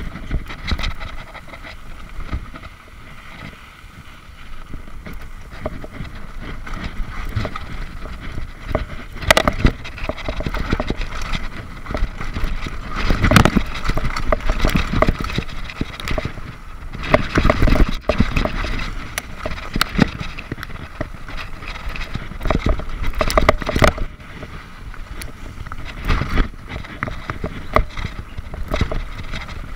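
Mountain bike ridden fast over a dirt singletrack trail, heard from a camera riding on the bike: tyre noise on dirt with the bike rattling and knocking over bumps. It is loudest over rough stretches about 13 and 17 seconds in.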